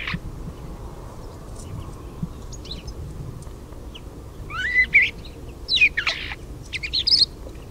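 Common starling calling: a few short whistles and chirps, some rising and some falling, bunched mostly in the second half, over steady low background noise.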